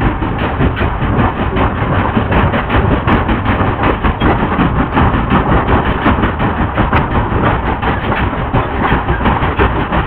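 Loud, dense rumbling noise from an experimental sound performance, steady throughout, with a fast irregular flutter running through it.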